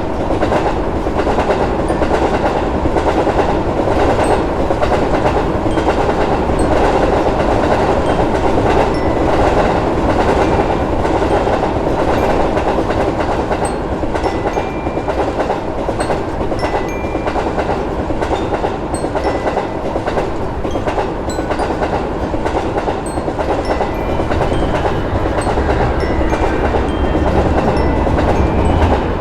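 A train passing: a loud, steady running noise with the clickety-clack of wheels over rail joints, continuing without a break.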